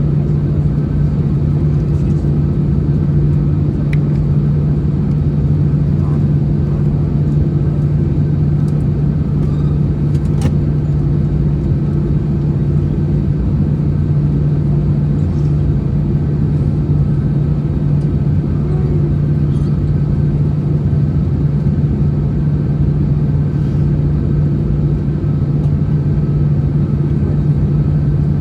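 Steady cabin hum inside an Airbus A321-211 on the ground after landing, its CFM56 engines at idle together with the air conditioning. A constant low drone with no change in pitch, and a few faint clicks.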